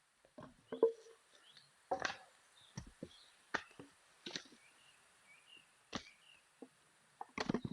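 A string of irregular knocks and clicks, roughly one a second, with faint bird chirps in the background.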